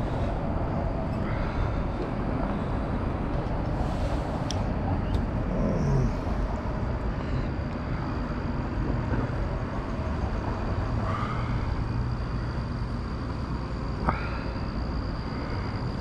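Steady low rumble of road traffic, with a faint sharp click about fourteen seconds in.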